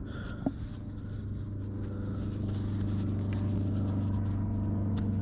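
A steady, low engine drone with a fixed pitch, slowly growing louder, as of an approaching vehicle, with a brief sharp tick about half a second in.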